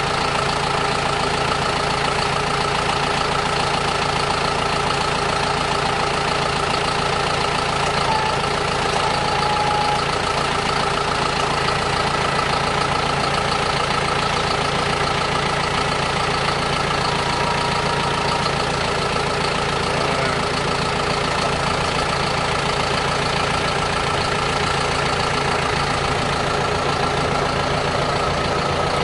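John Deere tractor's diesel engine idling steadily, with no change in speed.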